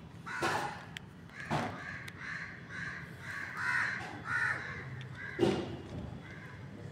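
Crows cawing, a run of harsh calls in quick succession.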